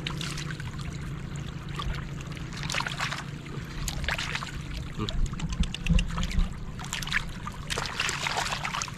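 Shallow water splashing and sloshing in several irregular bursts, over a steady low hum.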